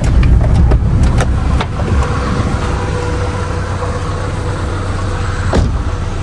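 A car running, heard from inside the cabin: a low engine and road rumble with a few sharp clicks. About a second and a half in the rumble drops to a quieter steady hum, with one more click near the end.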